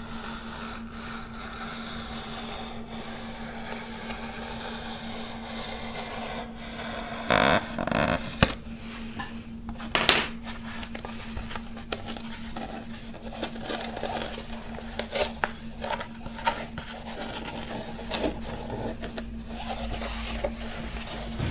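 A hobby knife and fingers scraping and rubbing along fabric covering glued to a balsa frame, with fabric rustling and a few louder knocks and rustles around the middle, over a steady low hum.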